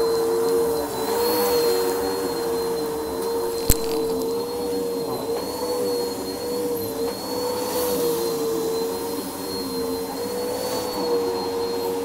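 Upright vacuum cleaner running on a thick shag rug, its motor a steady whine whose pitch wavers slightly as it is pushed back and forth. A single sharp click comes a little under four seconds in.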